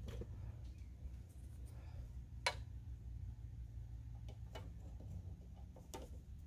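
Faint clicks and taps of a plastic door sill guard being pressed into place by hand on the door sill, the clearest about two and a half seconds in, with a couple more near the end, over a low steady hum.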